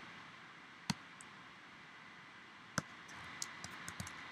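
Computer mouse and keyboard clicks while selecting and deleting objects: two sharp clicks about a second apart and then near three seconds, followed by a few lighter ticks, over a steady faint hiss.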